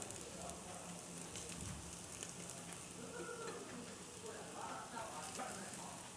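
Chicken pieces on skewers over hot charcoal sizzling steadily as cooking oil is brushed on, with scattered small crackles.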